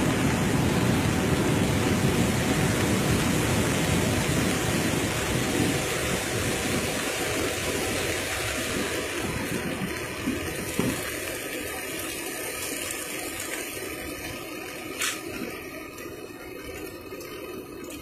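The Ganga in monsoon flood, a swollen muddy torrent, rushing past as a loud steady rush of water that slowly grows quieter through the second half. A couple of brief knocks sound near the middle and toward the end.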